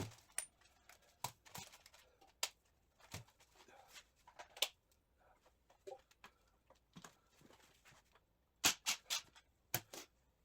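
Scattered clicks and clinks of hand tools and metal parts being handled on a Triumph TR6 gearbox, with a quick run of louder sharp clicks near the end.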